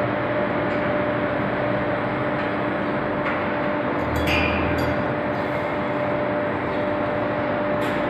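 Factory machinery noise from an induction heating line: a steady hum with two constant tones over a loud, even rush. A few sharp metal clanks come about three seconds in, a quick cluster of them around four to five seconds, and one more near the end.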